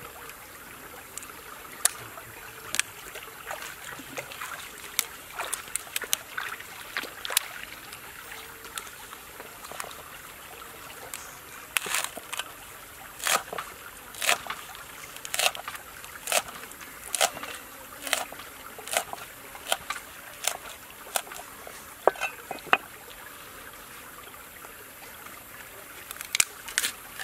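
Cleaver chopping a stack of green leaves on a round wooden chopping block: sharp knocks at an uneven pace, coming about once a second through the middle stretch. Running water trickles steadily underneath.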